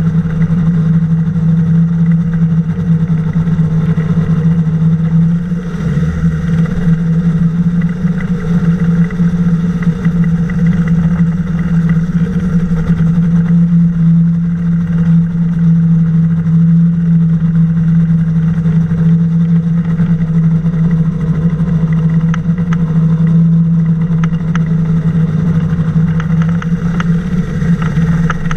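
Ultralight flying boat's engine running steadily as the craft taxis across the water: an even, loud, low drone with no change in pitch.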